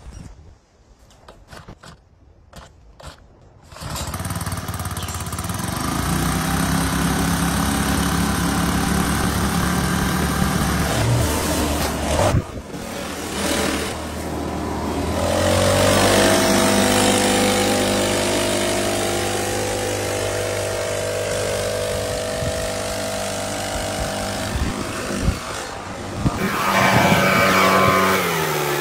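A few clicks of handling, then from about four seconds in a 38cc four-stroke backpack leaf blower engine (a Honda GX35-style copy) runs loudly with air rushing out of the blower tube. It revs up and settles several times and is opened up again near the end. Its top revs are lower than the owner expected.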